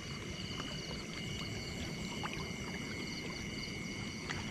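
Cast net being drawn in through shallow water, with soft sloshing and a few faint clicks, over a steady chorus of night insects.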